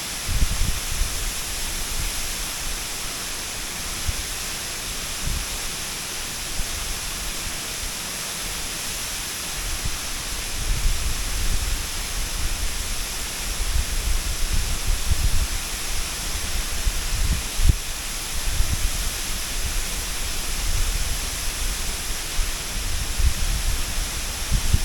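Waterfall pouring steadily, a constant rushing hiss of falling water, with irregular low rumbling bumps from about ten seconds in.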